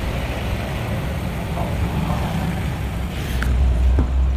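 Two-stroke single-cylinder engine of a 1994 Yamaha RX-King motorcycle running with a steady low rumble that grows louder about three seconds in, with a couple of faint clicks.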